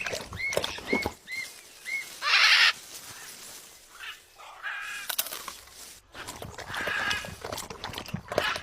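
Birds calling: four short rising-and-falling calls in quick succession, then one loud harsh call, and more scattered calls later.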